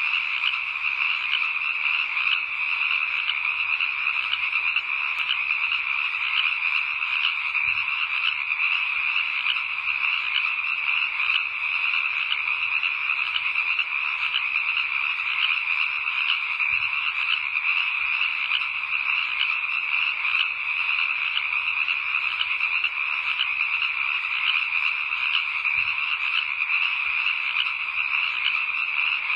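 Dense, unbroken chorus of frogs calling at night, a steady mass of rapid, fine pulsing with no single call standing out.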